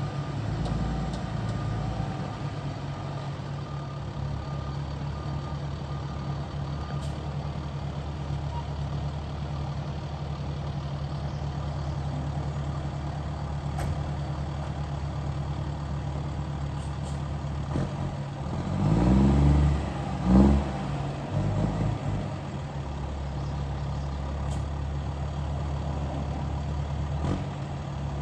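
Heavy-equipment diesel engine running steadily under work, revving up briefly twice about two-thirds of the way through.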